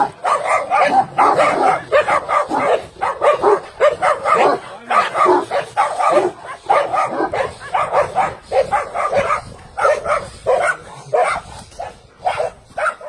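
Dog barking rapidly and over and over, about two or three barks a second, easing off near the end.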